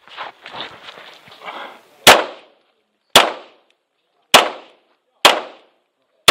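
Tanfoglio Stock 2 Xtreme 9mm pistol firing 115-grain factory rounds: four sharp shots about a second apart starting about two seconds in, each with a short echoing tail, and a fifth right at the end. Before the first shot comes about two seconds of low scuffing from movement.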